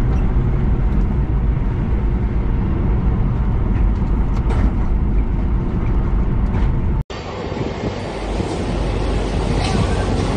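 Steady road and engine rumble heard from inside a vehicle driving on a highway, heavy in the low end. About seven seconds in it cuts off abruptly, and different, somewhat quieter background noise takes over.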